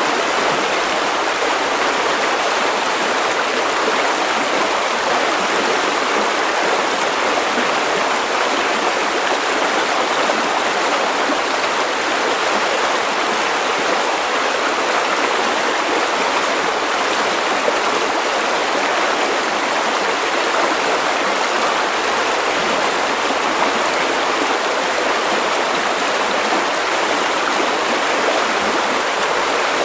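River water running over stones, a steady rushing and burbling.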